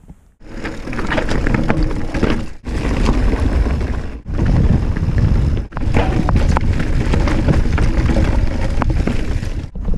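Wind buffeting an action camera's microphone while a mountain bike descends a rocky trail, with tyres crunching over stones and the bike rattling. The sound drops out for a moment about four times.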